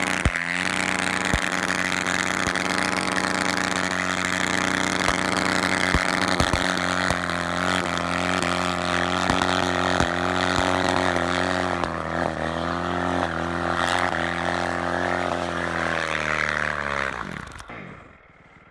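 Honda CRF450R dirt bike's single-cylinder four-stroke engine held at steady revs as the rear wheel churns and sprays through deep snow, revving down and fading near the end.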